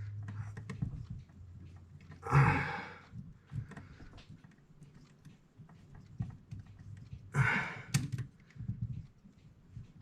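Light clicks and taps of small clock-movement parts and tools being handled, with two loud breathy exhales, one about two seconds in and one about seven seconds in.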